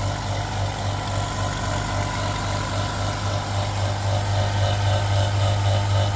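Ozito 24-litre, 1 HP silent oil-free air compressor running with a steady low hum, quiet enough to talk over; it gets slightly louder about four seconds in.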